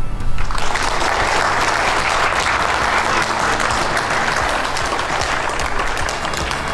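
Crowd applauding: dense clapping that starts about half a second in and thins out toward the end.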